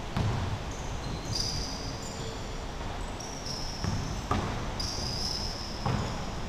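Basketball game at a distance on a wooden gym floor: faint ball bounces and thumps, and short high sneaker squeaks from about a second in.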